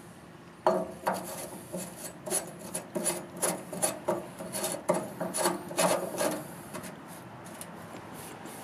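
Brass fire-hose nozzles being handled and set down on a metal diamond-plate step: a quick run of metal clinks and scrapes, some ringing briefly, that dies away near the end.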